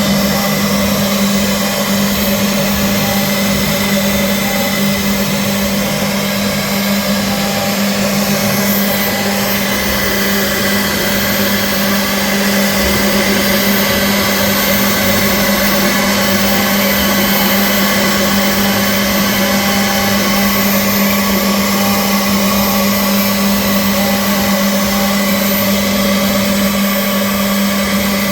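CNC milling machine running steadily and loudly, a constant motor hum with a whine and hiss that hold level throughout.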